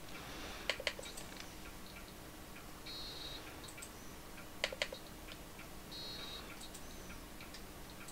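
A computer mouse button double-clicked twice, about four seconds apart: two pairs of sharp, quick clicks. These are double-clicks on Amiga Workbench icons, the first opening the SysInfo drawer and the second launching the program.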